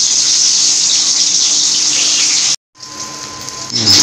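Food sizzling in hot oil in a steel kadai as pieces are dropped in, a steady loud hiss. It cuts off abruptly about two and a half seconds in and comes back as a quieter hiss.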